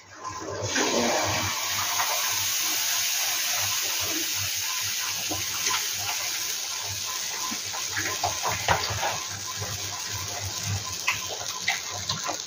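Pancake batter sizzling on a hot cast-iron tawa, a steady hiss that starts about half a second in as the batter is poured, with scattered small crackles.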